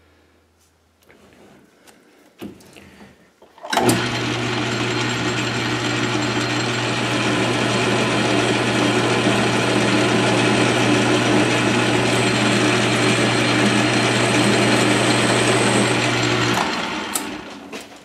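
South Bend 13-inch lathe switched on about four seconds in, running steadily with a hum while it takes a turning cut on a small shaft, then switched off and running down near the end.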